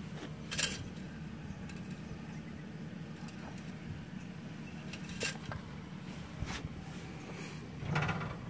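A few sharp metallic clicks and taps from handling the excavator engine's oil dipstick during a pre-start check, over a steady low hum.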